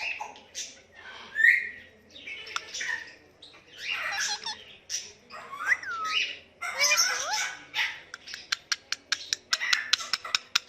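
Pet Psittacula parakeet chirping and squawking in short bursts, with a few whistled calls that slide up and down in pitch, then a fast run of short sharp clicks near the end.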